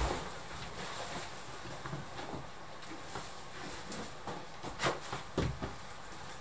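Scattered soft thumps and knocks of a person moving about a room and handling things, the loudest about five seconds in, over a faint steady hiss.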